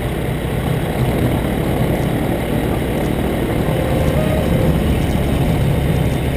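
Aeroprakt A22 Foxbat light aircraft's engine and propeller running steadily at low taxiing power, heard from a wing-mounted camera.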